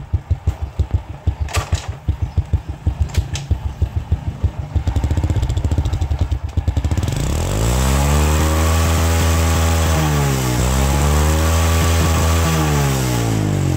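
Alpha 202 motorcycle engine running through its original stock Honda muffler, heard at the muffler tip: a low idle with distinct exhaust pulses, then about seven seconds in the throttle is opened, the revs rise and hold high with one brief dip, and fall back near the end. The exhaust note is extremely quiet, the sign of an intact stock muffler.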